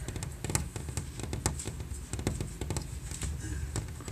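Irregular light clicks and taps, several a second, over a steady low rumble.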